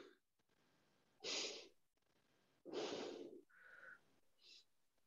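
A person breathing slowly and deeply close to the microphone while holding a stretch: two breaths, a short one just over a second in and a longer one about a second later.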